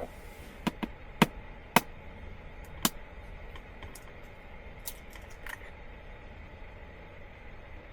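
An egg tapped against the rim of a cooking pot to crack it: a few sharp taps in the first three seconds, then a couple of fainter clicks, over a steady low hiss.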